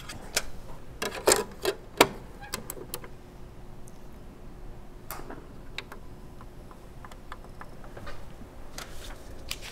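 Sharp clicks and light knocks at uneven intervals, thickest in the first three seconds, from the buttons and handling of a Sony portable audio player being set up to play a recording.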